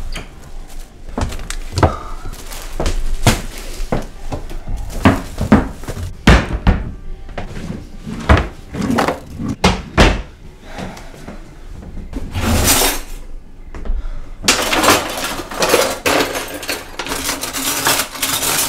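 Kitchen drawers and cupboard doors being yanked open and banged shut, with a string of knocks and thuds, as someone rummages hastily for a can opener. Near the end the knocks run into a dense rattling clatter of cutlery and utensils being churned through in a drawer.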